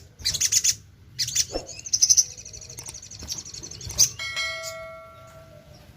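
Sogon (sogok ontong) bird singing fast, high trilled chirps in quick bursts through the first half. About four seconds in, a sharp metallic ding rings out like a bell and fades over nearly two seconds.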